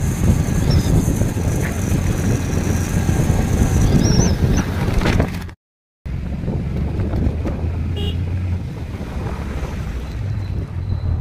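Motorcycle on the move: wind buffeting the microphone over the engine running, with road traffic. The sound drops out for a moment just past halfway, and a short vehicle horn toot sounds about eight seconds in.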